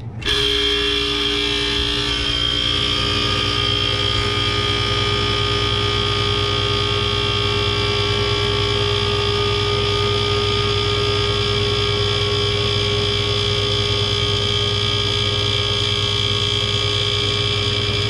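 Tecumseh hermetic compressor of a True T-23F reach-in freezer kicking on abruptly about a quarter second in, then running loudly and steadily with a low hum and a steady whine. The loud start-up is what the technician suspects is liquid refrigerant flooding back to the compressor.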